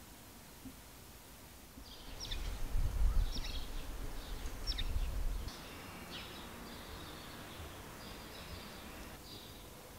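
Small birds chirping outdoors in short, quick calls that begin about two seconds in and keep going. A low rumble runs underneath from about two to five and a half seconds and is the loudest part.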